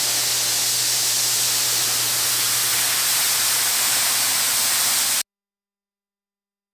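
Loud, steady hiss like escaping steam, over a low steady hum; it cuts off abruptly about five seconds in.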